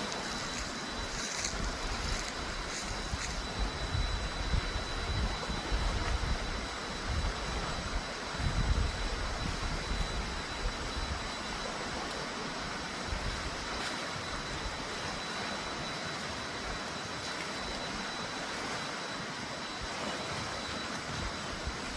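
Steady outdoor background noise with low wind rumbles buffeting the microphone from about four to ten seconds in, and a thin steady high tone throughout.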